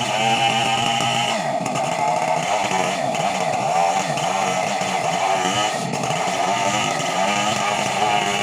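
Two-stroke chainsaw running at high revs. From about a second in its engine pitch dips and wavers as it labours under load cutting wood, and it steadies again near the end.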